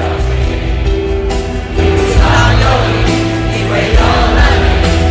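Concert crowd singing along in unison with a live rock band, recorded on a phone from among the audience.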